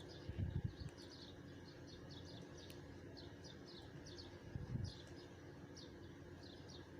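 Faint bird chirping, many short high calls about three a second. Two low dull knocks stand out, about half a second in and again about four and a half seconds in.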